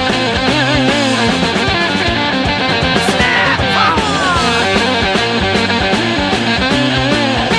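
Psychedelic rock band playing an instrumental passage: electric guitar lead with wavering, bent notes over bass and a steady drum beat, with a cymbal crash about three seconds in followed by a falling guitar slide.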